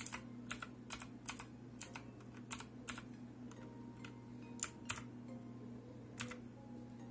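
Redragon Kumara K552 mechanical keyboard keys pressed one at a time: about ten separate clicks, unevenly spaced, over a steady low hum.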